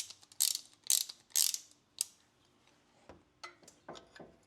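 Ratchet of a brake caliper piston compressor tool being worked in short strokes: five sharp ratcheting bursts about half a second apart, then a few fainter clicks and knocks over the last second and a half as the tool is set against the caliper piston.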